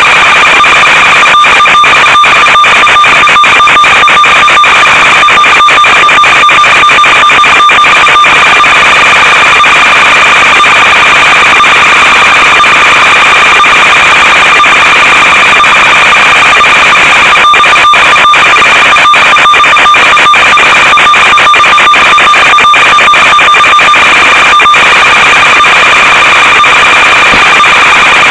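Loud, steady static hiss with a constant buzzing tone from the audio channel of an analog FPV video link, crackling with brief dropouts in clusters through the first third and again in the second half.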